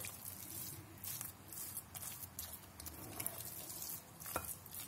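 Thick pepper paste being stirred and mashed with a spatula in a glass bowl: faint, irregular wet squelching with light scrapes against the glass.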